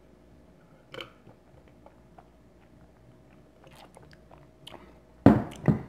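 Close-miked eating: quiet chewing with faint wet clicks, then two louder mouth smacks about half a second apart near the end.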